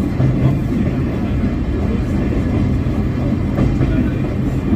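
Sightseeing train running along the track, heard from aboard a carriage: a steady low rumble of wheels and running gear.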